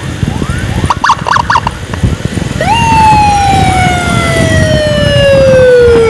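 A siren jumps up in pitch about two and a half seconds in, then falls slowly and steadily for several seconds. Under it runs the constant rumble of wind and a motorcycle riding at high speed. Three short blips sound about a second in, and fainter rising siren chirps repeat in the background.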